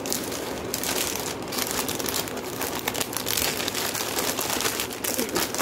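Clear plastic garment packet crinkling and rustling in irregular bursts as it is handled around a folded cotton panjabi.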